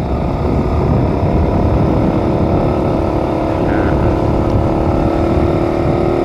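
Motorcycle engine running steadily on the move, an even engine hum over a low rumble.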